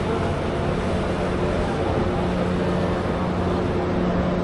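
Cargo boat's engine running steadily as it moves slowly along the waterway: a steady low hum over an even wash of outdoor noise.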